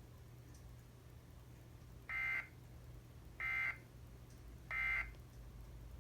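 Three short, identical screeching data bursts from an Emergency Alert System SAME encoder, about a second and a half apart. Their shortness and their place right after the spoken warning mark them as the end-of-message (NNNN) code closing the alert.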